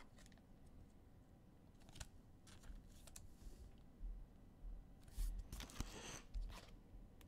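Faint scattered clicks and rustles of football trading cards and their packaging being handled, with a slightly louder flurry a little past five seconds in.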